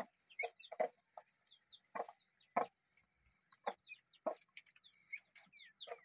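Broody hen clucking, a short low cluck every second or so. Between the clucks, newly hatched turkey poults peep with many thin, high cheeps that slide downward.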